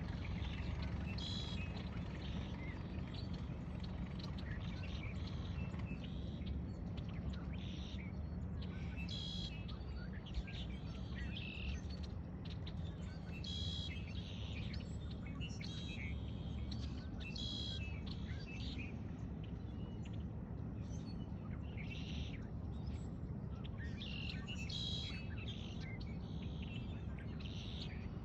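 Birds in a dawn chorus, giving repeated short chirping calls every few seconds over a steady low rumble.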